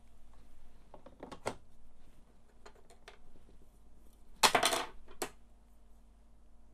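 Hard plastic clicks and a short clatter as the parts of an HP laser toner cartridge are fitted back together by hand, its halves and plastic end cap knocking and snapping into place. A few single clicks come first, and the loudest clatter comes a little past the middle.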